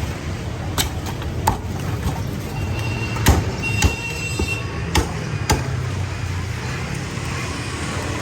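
A cleaver chopping roast pork on a chopping block: about six sharp, irregular chops, over a steady low rumble of passing street traffic.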